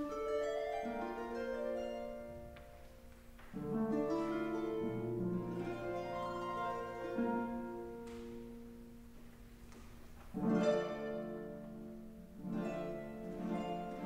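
Paraguayan harp played solo: plucked runs and chords whose notes ring on and die away, with strong new chords struck about three and a half and ten and a half seconds in.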